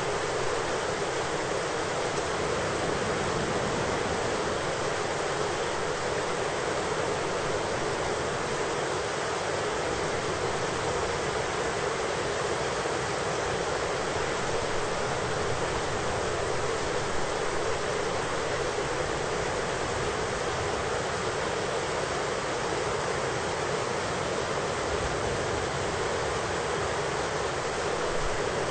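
Steady, even rush of thunderstorm rain, with no thunderclap and no change in level.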